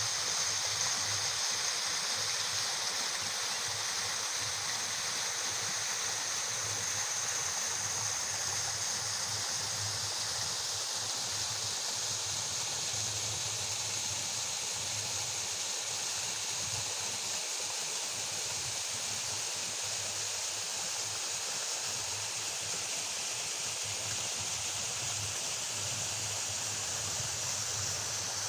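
Waterfall pouring, a steady rush of water with a strong hiss and no change over the whole stretch.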